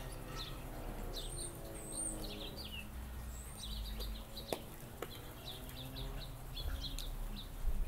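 Small birds chirping, a run of short quick chirps with a high whistled note about a second and a half in. A single sharp click about four and a half seconds in.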